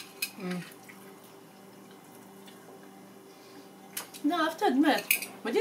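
A couple of sharp clicks of chopsticks against a bowl at the start, then a quiet stretch, then a woman talking from about four seconds in.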